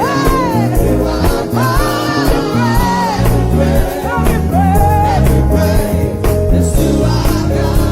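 Live contemporary gospel praise music: sung melody lines over steady instrumental accompaniment with a beat.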